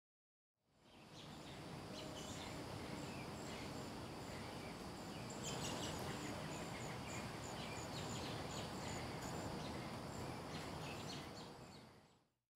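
Faint outdoor ambience: a steady low background hum with short, high chirps scattered through it, fading in about a second in and fading out near the end.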